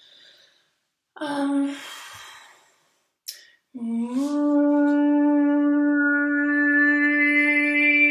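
A woman's overtone singing in a resonant stairwell. After a short trial note and a breath, a drone begins about four seconds in, slides up slightly and is then held steady, with a high whistling overtone brightening above it.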